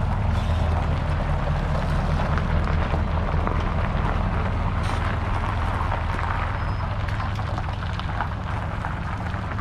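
Pickup truck engine running low and steady while it tows a travel trailer slowly forward over gravel.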